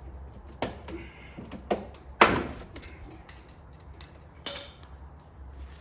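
Knocks and clatters of tools and plastic trim parts being handled while a car's front bumper cover is taken apart: four sharp hits, the loudest a little over two seconds in.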